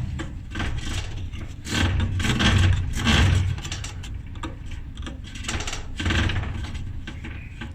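Maytag dryer's blower fan turning and rattling, with two louder stretches of scraping, one about two seconds in and a shorter one near six seconds. The fan is striking something as it spins, which the owner first takes for the bottom of its housing.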